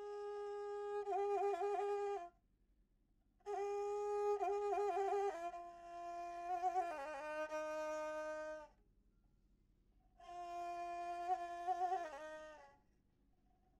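Solo melody instrument playing a slow, ornamented tune as film score, in three phrases with short pauses between them; the melody drops lower in the middle phrase.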